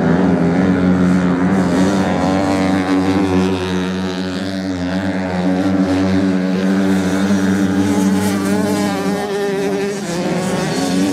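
Several off-road motorcycles' engines running hard on a sand course, a continuous engine drone whose pitch wavers as the bikes corner. A higher engine note joins near the end.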